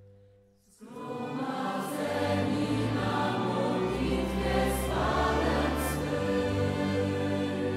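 Choir singing with musical accompaniment, coming in about a second in after the preceding music fades away.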